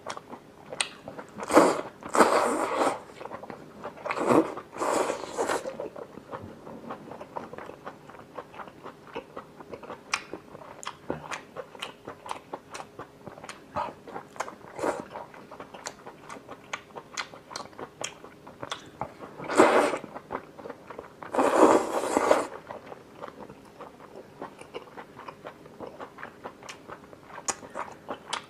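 Close-miked eating of cooked whole octopus: steady wet chewing and biting, full of sticky mouth clicks, with several louder slurps of a second or so, twice near the start and twice about two-thirds of the way through.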